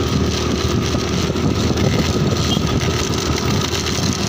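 Steady engine and road noise from a vehicle moving along a paved road, with a constant hum under a rushing noise.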